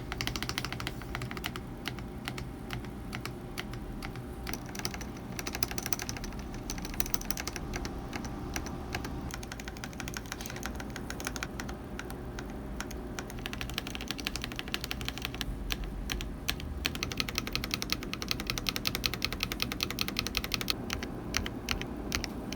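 Fast, continuous typing on a Redragon KS82-B mechanical keyboard fitted with PBT keycaps: a dense stream of keystroke clacks, somewhat busier over the last third.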